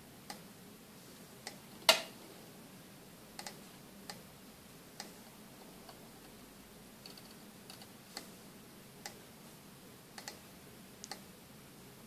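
About a dozen light, sharp clicks and taps at irregular intervals, some in quick pairs, with one much louder knock about two seconds in.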